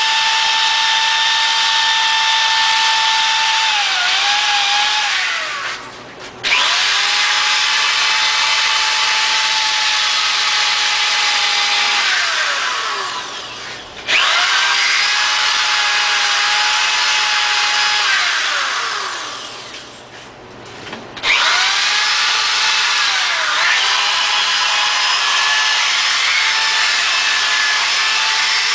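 Electric drill fitted with a wire brush, scouring rust off a wrought iron post: a steady motor whine over a scraping hiss. Three times the trigger is let off and the motor spins down with a falling pitch, then starts again abruptly.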